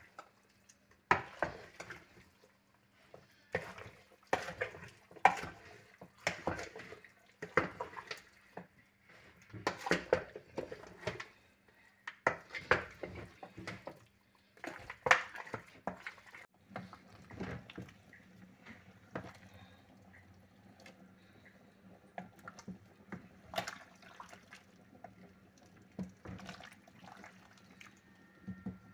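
A spoon stirring raw chicken pieces with onions and seasoning in a stainless steel pot, scraping and knocking against the pot with wet sounds from the meat, in strokes about a second apart. About halfway through the strokes turn quieter and more frequent over a low steady hum.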